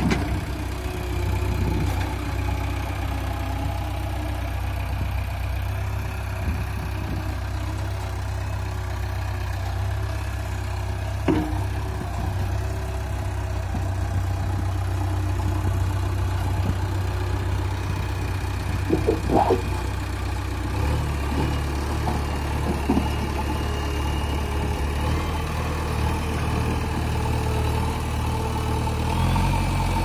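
JCB backhoe loader's diesel engine running steadily, with a few short sharp knocks about 11 seconds and 19 seconds in; the engine note shifts a little around 21 seconds and again near the end as the loader works.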